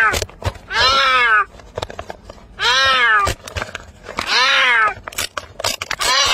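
An abandoned kitten meowing loudly and repeatedly, about one meow every second and a half. Each meow rises and then falls in pitch.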